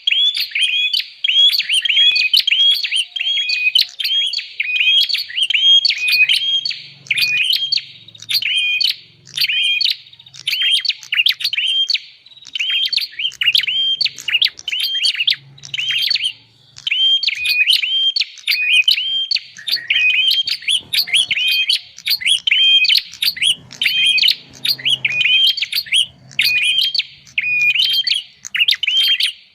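Prenjak (prinia) call played as a bird-trapping lure: sharp chirping notes repeated quickly and without pause, about two a second.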